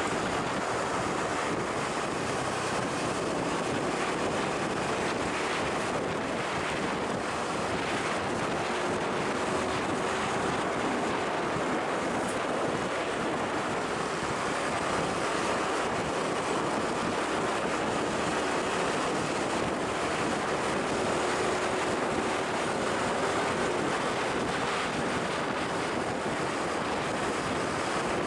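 Steady rushing wind noise on the microphone over the faint, even hum of vehicle engines running.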